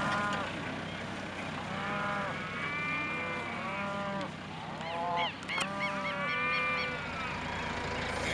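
Cattle mooing, a run of long calls one after another, some overlapping, over a low steady hum.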